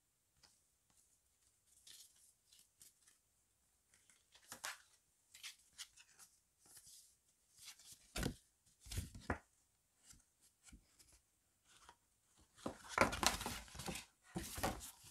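Glossy photocards and the pages of a card booklet being handled and leafed through: scattered short rustles and flicks of paper, a couple of soft thuds just past the middle, and the loudest, busiest rustling near the end.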